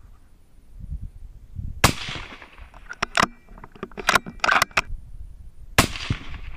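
Two bolt-action .308 Win rifle shots about four seconds apart, each with a fading echo. Between them comes a run of sharp metallic clicks as the bolt is cycled.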